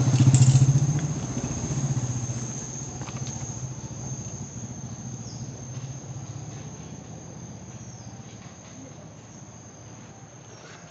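Insects trilling steadily in a high, thin, unbroken tone. A low rumble is loudest in the first second or two and fades away over the next few seconds.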